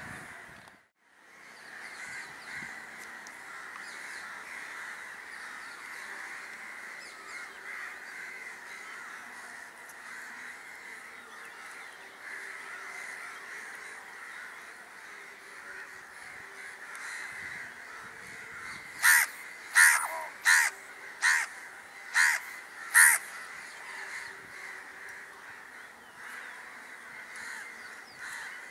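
Crows cawing: six loud caws in quick succession about two-thirds of the way through, over a steady background din.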